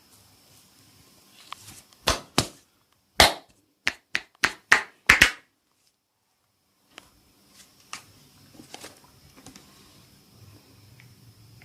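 About nine sharp slapping strikes of a hand on a head during a head massage, in quick succession: two, then a faster run of six or seven. Afterwards there is faint rustling with small clicks.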